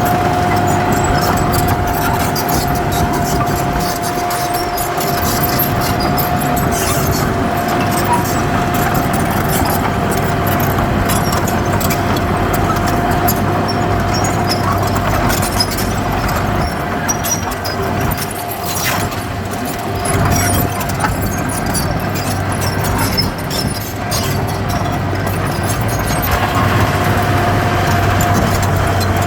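Heavy diesel earthmoving machinery running under steady load, with a steady high whine and frequent clanks and rattles. The whine is strongest at the start and again near the end.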